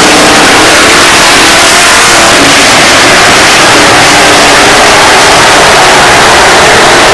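A pack of dirt-track race cars running hard around the oval, their engines blending into one dense, steady drone. It is loud enough to overload the microphone.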